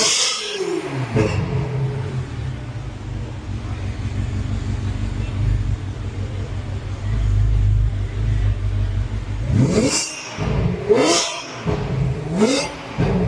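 Ferrari 458 Italia's 4.5-litre naturally aspirated V8 dropping back from a rev to a steady idle, then blipped several times in quick succession near the end, each rev rising and falling sharply.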